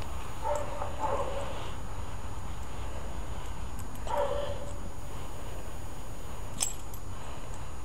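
Domestic tabby cat meowing softly: two short meows about a second in and one longer meow around four seconds in. A single sharp click comes later, over a steady low background hiss.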